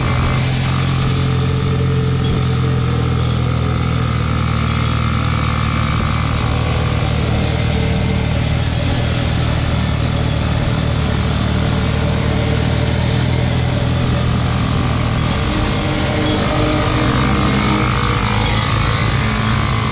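Homemade three-wheeler's 150cc engine running steadily as it drives along, a little louder near the end.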